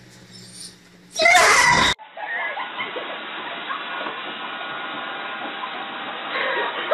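A short, very loud burst of noise about a second in. Then a vacuum cleaner runs with a steady hiss while its hose is held to a dog's open mouth, with the dog's wavering cries over it.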